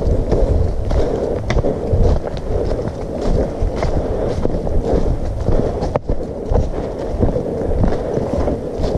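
Footsteps on a trail covered in fallen leaves, with a constant rumbling noise from the hand-held camera moving as its holder walks, and scattered sharp clicks.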